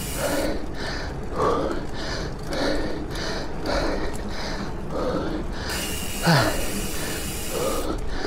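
A racer breathing hard in short, rhythmic breaths about two a second, with mechanical clicking behind them and a brief falling grunt about six seconds in.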